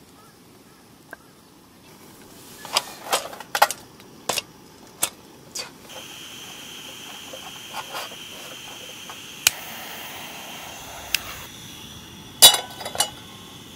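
Metal clinking and knocking as the pot-support arms of a portable gas burner are set in place, then the burner's steady hiss of gas once it is lit. Near the end a griddle pan clatters down onto the burner's support.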